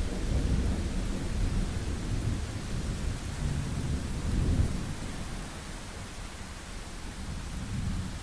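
Thunder rumbling low and long over steady rain. The rumble swells to its loudest a little past halfway, then fades back under the rain's hiss.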